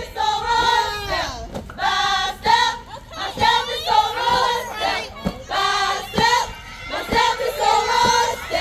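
Many women's voices singing and chanting together in unison, with shouts from the crowd mixed in.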